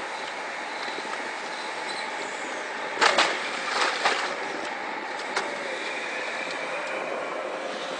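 Long-reach hydraulic excavator running steadily as it dumps a bucket of wet dredged mud into a steel hopper barge. About three seconds in the load lands with a loud splattering thump, followed by a second one a second later.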